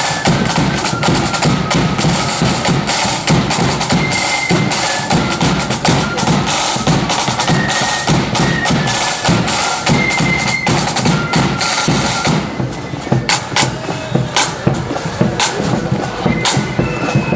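Marching flute band playing: rapid snare drumming with bass drum under a shrill flute melody. About twelve seconds in the tune stops, leaving a few scattered drum taps.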